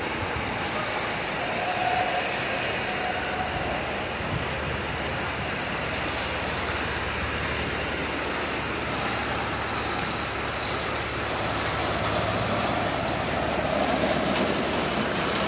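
Steady water noise in a flooded building, growing a little louder near the end.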